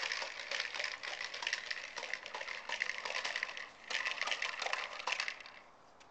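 Corn popper push toy rolled over grass, its plastic balls popping and rattling inside the clear dome in a fast clatter. The clatter breaks off briefly about two-thirds of the way through, picks up again, then stops near the end.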